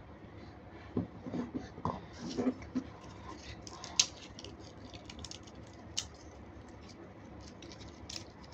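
Plastic spoon stirring red jelly liquid in a clear plastic container, with irregular small scrapes and clicks against the container's sides and bottom and a sharper knock about four seconds in.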